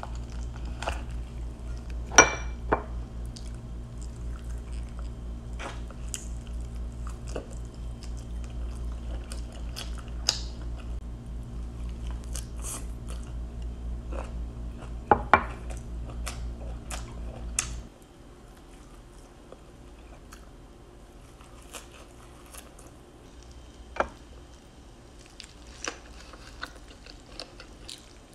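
A person chewing and eating chicken and fresh herbs, with scattered sharp clicks and taps of food being handled against a plate. A steady low background hum stops suddenly about two-thirds of the way through.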